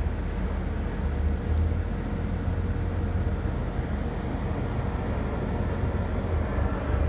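CEM LabWave 9000 microwave moisture analyzer running a drying cycle at full power: a steady low hum from its magnetron and cooling fan, with a faint steady tone above it.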